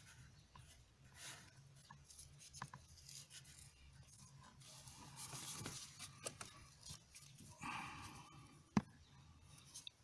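Faint rubbing and scraping of a gloved hand threading a new brake light switch into its bracket at the brake pedal, with scattered light clicks and one sharper click near the end.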